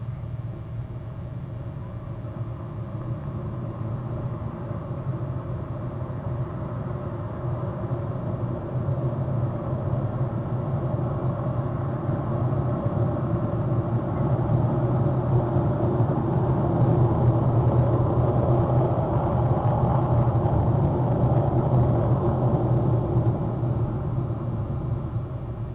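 Low engine rumble from a passing motor vehicle or craft, swelling gradually to a peak a little past the middle and then fading.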